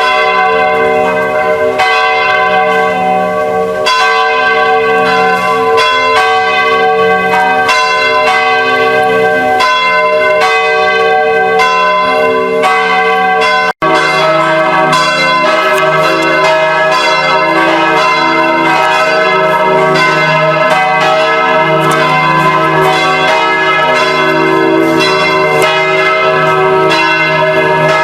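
Church bells pealing, several bells struck in overlapping succession with long ringing tones. About halfway through, the sound drops out for an instant and then resumes, with a lower bell more prominent.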